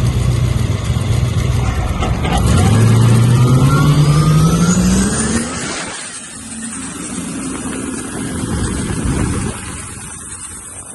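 Twin-turbocharged GM LT V8 with twin Garrett G35 turbos accelerating hard on low boost: the engine note climbs steadily while a thin turbo whine rises high above it. About halfway through the throttle is closed and the engine drops to a lower, quieter note, then fades near the end.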